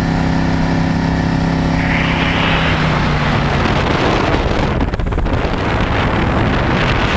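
Motorboat engine running at a steady pitch. About three and a half seconds in, a rushing noise of wind on the microphone and water takes over and covers the engine tone.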